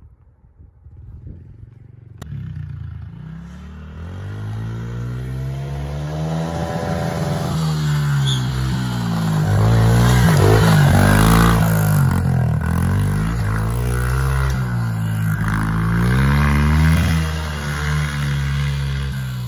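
Pit bike's small single-cylinder engine revving up and dropping back over and over as it rides past, coming in about two seconds in and loudest about halfway through.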